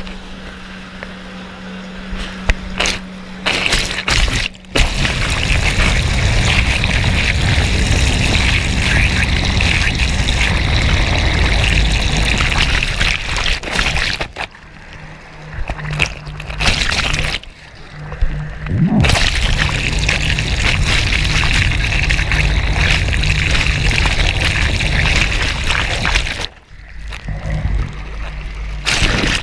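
Jet ski running across the water: a steady engine tone under rushing, splashing water, with the sound dropping away briefly several times.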